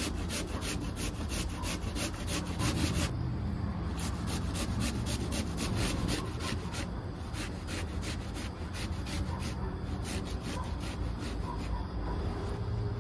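Raw potato being grated on a metal box grater, with quick rasping strokes several times a second. They come in runs of a few seconds, with brief pauses between.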